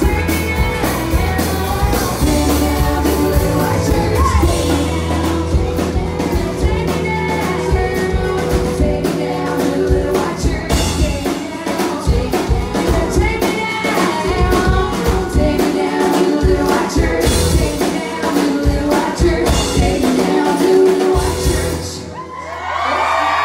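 Live band playing a rock song with a lead vocal over drums and guitar. The music stops about 22 seconds in and the crowd breaks into cheering and whooping.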